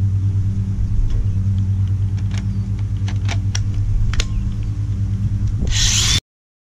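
A steady low hum throughout, with a few sharp plastic clicks and knocks as a DeWalt 20V battery pack is snapped onto a cordless angle grinder and the tool is handled. Just before the end comes a short loud burst of noise, and then the sound cuts off abruptly.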